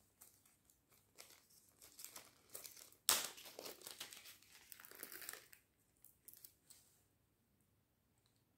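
Small clear plastic packet crinkling and rustling in the hands as it is opened, with a sudden, much louder rip about three seconds in.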